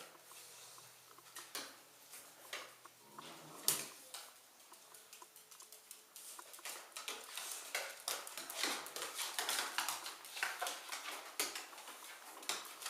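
A dog and a Staffordshire bull terrier puppy tussling in play: a run of small clicks, scuffles and knocks. The sounds are sparse at first and grow busier about halfway through.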